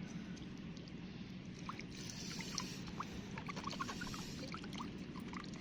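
Seawater washing among shore rocks, trickling and gurgling in many quick little blips from about two seconds in, over a steady low wash of surf.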